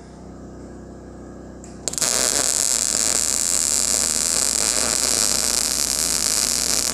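MIG welding arc striking about two seconds in and running as a steady hiss for about five seconds while a bead is laid on quarter-inch plate, then cutting off. A low hum lies under it.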